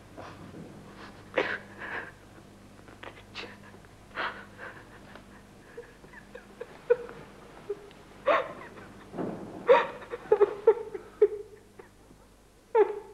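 A woman crying: sniffing and catching her breath in short irregular gasps, breaking into a run of quick sobs about ten seconds in.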